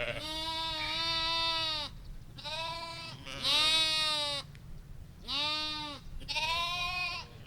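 Several sheep bleating in turn: about five drawn-out bleats in different voices, some low and some higher, the loudest about halfway through.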